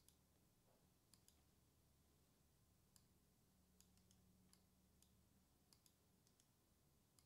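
Near silence with faint, irregular clicks of computer keyboard keys being pressed.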